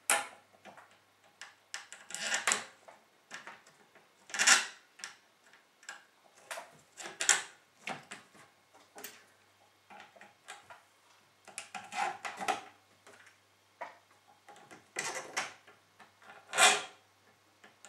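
Small metal mounting screws and nuts clicking and rattling against a motherboard and its backplate as they are fitted through the holes around the CPU socket. Irregular taps and scrapes, with louder clacks about four and a half seconds in and again near the end.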